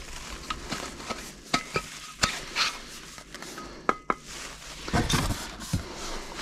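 Metal shaker cups being handled, knocking and clinking together with short metallic rings, amid rustling of packaging.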